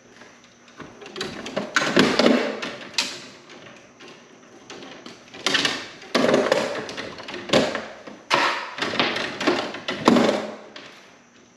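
Stiff electrical wires being pulled and routed by hand through an open breaker panel: three bursts of rustling, scraping and clicking of wire against the metal box and breakers, with quieter gaps between.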